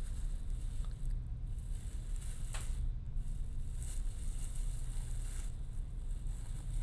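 Bubble wrap rustling and crinkling as it is unwrapped by hand, with a couple of sharper crackles.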